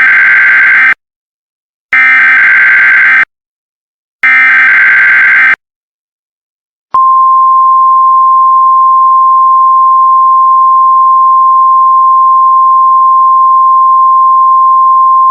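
Emergency Alert System header: three harsh, screeching digital data bursts, each a little over a second long with about a second between them, the first already under way. About seven seconds in, a single long steady alert tone begins, the attention signal that announces a warning.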